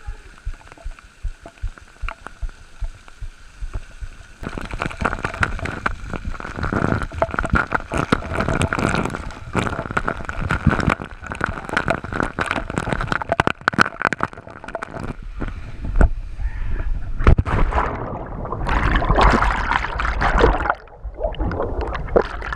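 Waterfall-pool water gurgling and sloshing close to a GoPro, with many sharp splashes and knocks that grow louder a few seconds in, and deep low rumbling in the second half.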